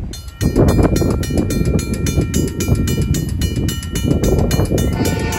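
Safetran mechanical crossing bell starting to ring as the crossing activates, rapid, even strikes about four a second with a ringing tone. Near the end a held chord of steady tones joins in.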